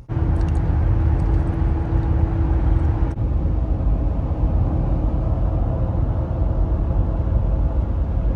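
Steady road and engine noise inside a 2017 Honda Pilot V6 SUV cruising on the highway: a constant low rumble, with a faint hum that drops out about three seconds in.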